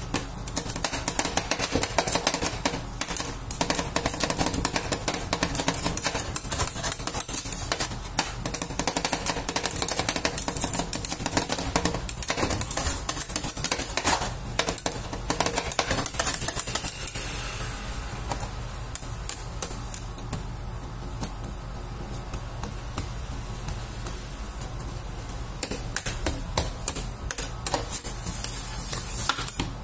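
Metal spatulas chopping and tapping ice cream on a stainless-steel cold plate: a fast, dense run of clicks that thins out after about eighteen seconds as the work turns to scraping and spreading the ice cream thin. A steady low hum runs underneath.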